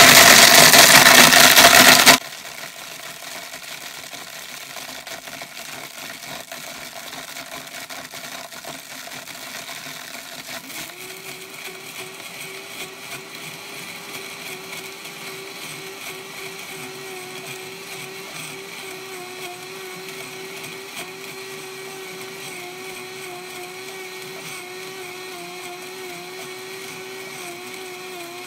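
Electric blender grinding dehydrated chicken into powder. It is very loud for the first two seconds, then settles into a steadier, quieter motor drone whose pitch steps up about a third of the way through and then holds.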